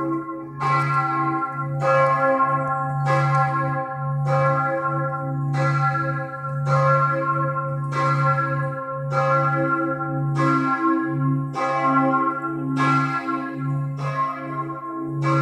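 The bells of St. Emmeram's Cathedral ringing together in a continuous peal for the six o'clock evening ringing. A deep bell hums beneath higher bells, with a new strike about once a second.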